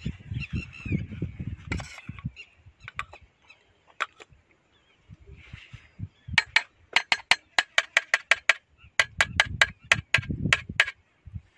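A metal spoon clinking rapidly against steel cookware while ghee is spooned out, about six light clinks a second in two runs over the second half. Birds call briefly near the start.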